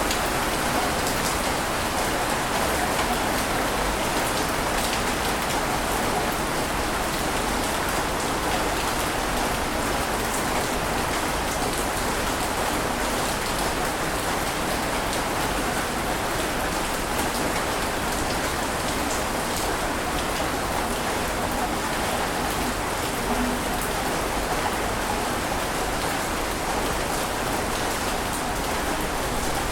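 Steady water ambience: an even rushing hiss with faint crackles of drops, without the rise and fall of separate breaking waves.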